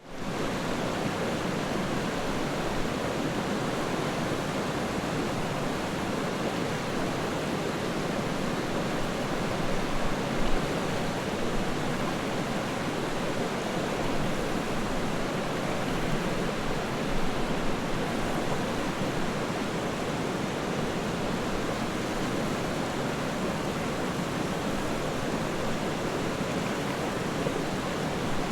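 River water rushing and splashing in a steady, even wash, fading in at the very start, with a few slightly louder splashes partway through.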